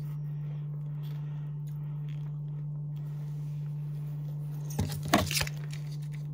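A small squeeze pouch of kit solution crackles while being squeezed and wrung out by hand, with a short burst of crackles about five seconds in. A steady low hum runs underneath.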